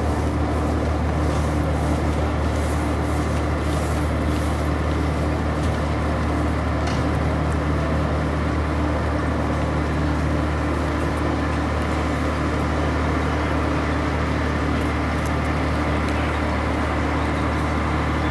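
Steady low drone of running machinery: a deep hum holding a few fixed pitches, unchanging throughout.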